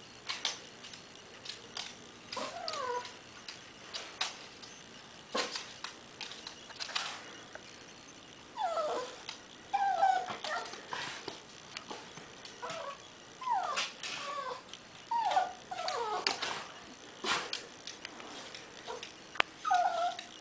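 Small dog whining and whimpering in short, falling cries with an occasional yip, begging for treats in a stocking hung out of reach. Scattered sharp clicks and taps come between the cries.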